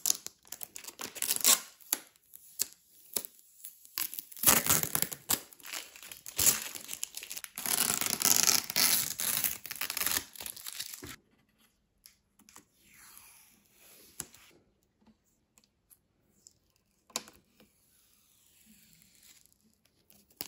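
Blue protective plastic film being peeled off a Thermomix's glossy body and handle: crackling, tearing plastic, loudest through the first half. After that only faint rustles and a few clicks.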